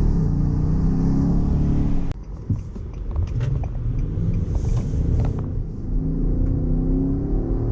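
The 5.6-litre V8 of a 2022 Nissan Patrol Y62 fitted with a replacement muffler, heard from inside the cabin while driving, its note rising under acceleration. About two seconds in the sound drops suddenly, with a few faint clicks, then the engine climbs again near the end.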